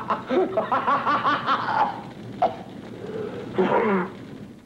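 A person laughing in quick repeated pulses, with a second falling burst of laughter about three and a half seconds in, fading out near the end.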